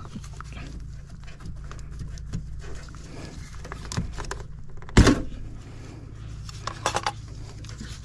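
A rubber vacuum hose being worked off a vacuum gauge's fitting: soft rubbing and small clicks over a steady low hum, with one sharp knock about five seconds in and a few quick clicks near seven seconds.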